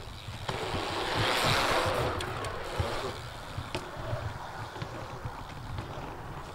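Wind buffeting the microphone with a constant low rumble, rising to a louder rushing swell about a second in that fades after a couple of seconds, with a few sharp clicks.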